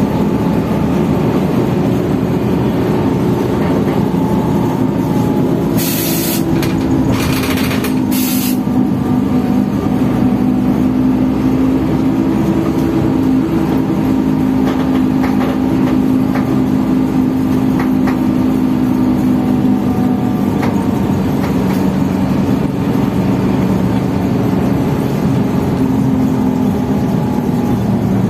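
Inside the cabin of a Transjakarta city bus, the engine runs with a steady low rumble whose pitch drifts slowly. About six to eight seconds in come three short bursts of compressed-air hiss.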